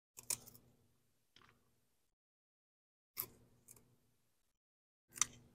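A blade snipping through the fleshy pads of a roadkill cactus: about five short, crisp cuts and clicks, irregularly spaced, with silence between them.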